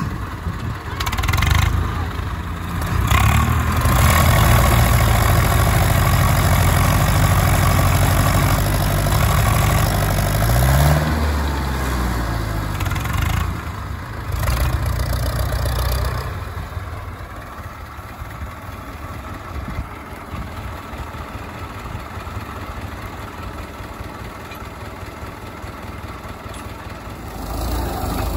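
Tractor diesel engines working hard under load, pulling a trailer loaded with sugarcane out of the mud. The engine note shifts in pitch about 11 seconds in, then drops to a quieter steady idle about 16 seconds in.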